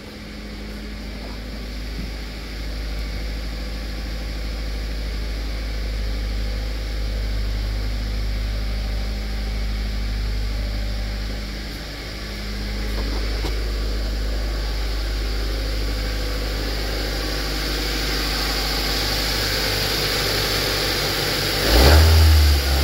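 2002 Mazda Protege's 2.0-litre four-cylinder engine idling steadily on a cold start, then revved up sharply near the end.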